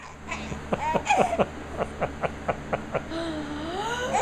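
A baby laughing at a pretend sneeze: a couple of high voiced yelps, then a quick run of short breathy laugh pulses, about six a second, and a longer rising voice sound near the end.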